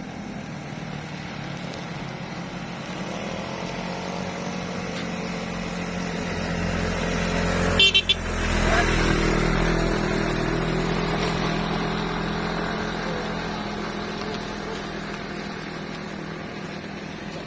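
A road vehicle's engine grows louder as it comes up the hill, passes close about eight seconds in, then slowly fades as it moves away. A short, sharp horn toot sounds just as it passes.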